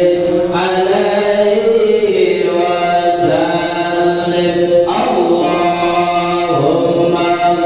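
Voices chanting an Islamic devotional chant in long, held melodic phrases, with no break.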